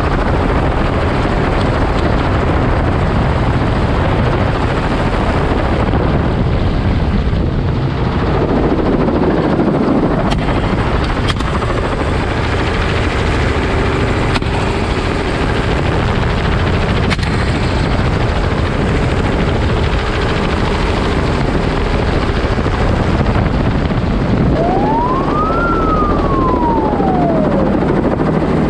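Helicopter in low flight, heard from its open doorway: steady rotor and engine noise with wind rush. Near the end a single thin tone glides up and then back down over about three seconds.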